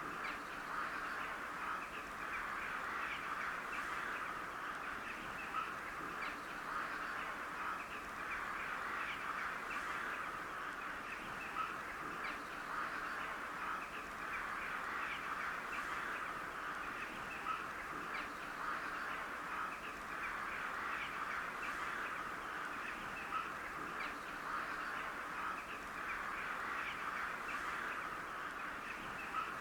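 A flock of crows calling, a dense, continuous chatter of many short calls with a louder single call standing out every few seconds.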